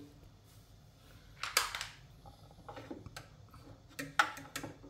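A screwdriver and screw knocking and scraping against a washing machine's stainless steel drum while a drum lifter screw is being fitted. There is a short scrape about a second and a half in, then a few light clicks.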